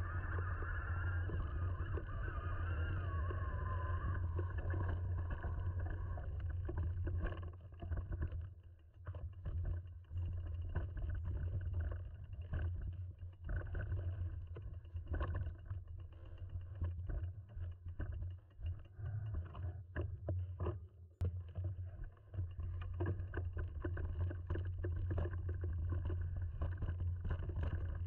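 Mountain bike riding over rough forest singletrack: a steady low rumble and hum of the moving bike, with many rattles and knocks from the tyres and frame over roots and rocks, more broken up and uneven through the middle stretch.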